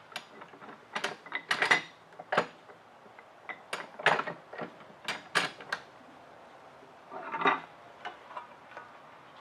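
Scattered, irregular clicks and knocks of a wooden dowel and a handsaw being handled and positioned, with a short cluster of knocks about seven seconds in.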